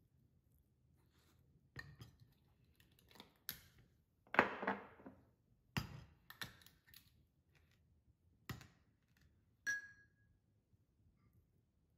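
Scattered light clicks and knocks, with a short scraping rustle about four seconds in and a brief ringing ping near ten seconds in.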